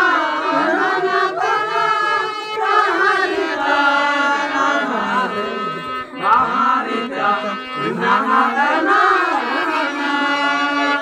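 Santali folk song: voices sing a wavering melody over a steady harmonium drone, with a hand-played barrel drum.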